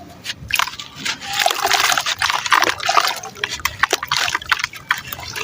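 Crumbly sand-and-cement chunks breaking apart in water: a dense run of wet crackles, crunches and splashes that starts about half a second in.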